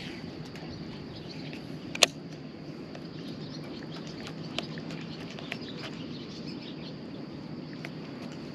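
Fishing rod and reel handled in a small boat: one sharp click about two seconds in and a few lighter ticks later, over a low steady hum.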